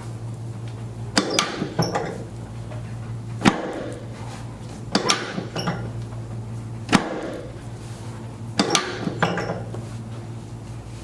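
Chiropractic adjustments on a patient lying face down: about five short bursts of sharp cracks and clicks a second or two apart, over a steady low hum.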